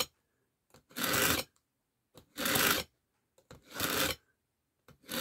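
Knife blade pulled repeatedly through the coarse slot of a Smith pocket sharpener: four rasping strokes of about half a second each, roughly a second and a half apart, the coarse slot taking steel off a chipped edge.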